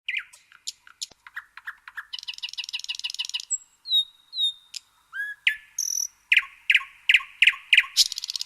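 Songbird singing: varied high chirps and whistled notes, with a fast rattling trill about two seconds in and again near the end, and a run of loud down-slurred notes in between.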